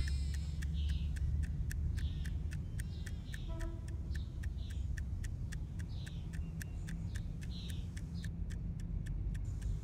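Wind-up alarm clock ticking steadily, about four ticks a second, over a low steady rumble.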